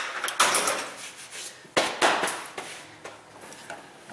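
Tools and metal car parts being handled: sharp clanks and knocks near the start and about two seconds in, then lighter rattling and scraping.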